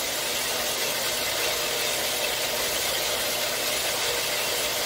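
A 4x6 horizontal metal-cutting bandsaw running steadily, its 18-teeth-per-inch blade sawing through a bundle of 11-gauge square steel tubing.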